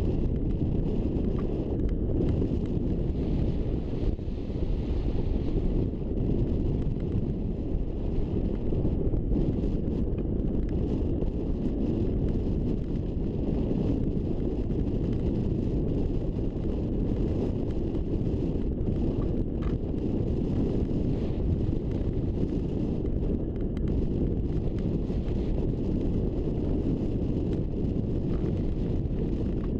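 Steady rush of wind buffeting the microphone of a camera mounted on a hang glider's wing in gliding flight.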